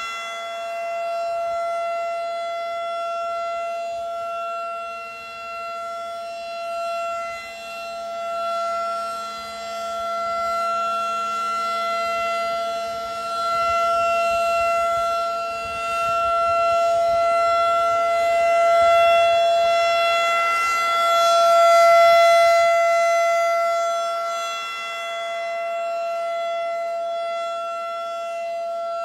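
Federal Signal 2001 DC outdoor warning siren sounding a tornado-drill signal: one steady, unbroken pitch that swells and fades in loudness as the rotating siren head sweeps past.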